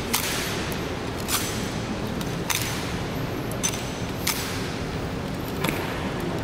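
Sharp clacks from an honor guard's rifle drill, about one a second, as the guards slap and set their bayoneted rifles in unison. They sound over a steady background hum.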